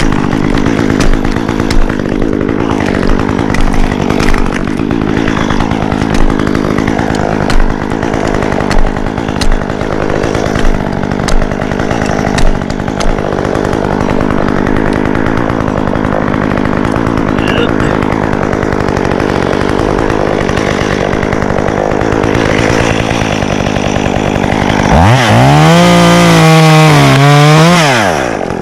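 Stihl chainsaw idling steadily, with a series of short sharp knocks over the first dozen seconds. About 25 seconds in it is throttled up to full speed for about three seconds, then drops back.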